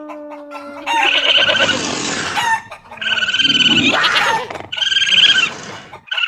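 Domestic fowl calling: three long calls of about a second each, spaced about two seconds apart, with a steady low tone underneath during the first second.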